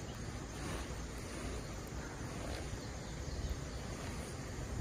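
Quiet outdoor ambience: a steady low rumble with a faint hiss above it, and no distinct events.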